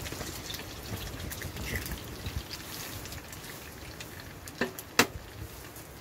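Square sausage and tatty scones sizzling steadily in a frying pan, with two sharp knocks near the end, an egg being cracked on the pan's edge.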